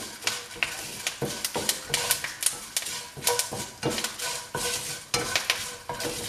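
A utensil stirring and scraping in a non-stick frying pan, with irregular clicks several times a second, over spices, dal and curry leaves sizzling in hot oil.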